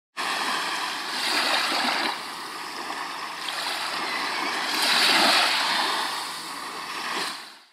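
Rushing sound of breaking waves, swelling twice and fading out at the end.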